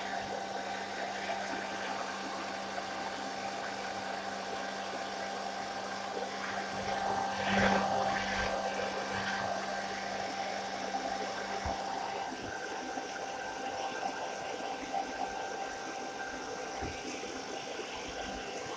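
Hairdryer running steadily on a low setting, a constant whir with a faint hum. About seven to eight seconds in, a louder brief rustling noise.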